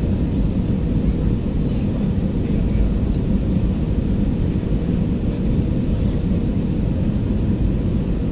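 Steady low rumble of an Airbus A320-216's CFM56 engines and rushing airflow heard inside the cabin on final approach, with a faint steady hum running through it. A few faint high-pitched chirps sound about three to four seconds in.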